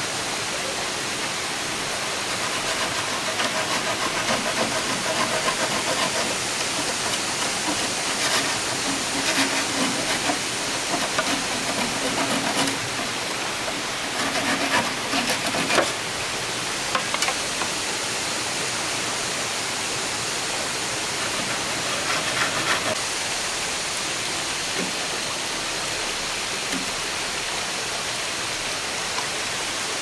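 Steady rushing water of a waterfall, with scattered knocks and clicks through the middle, the strongest about halfway in.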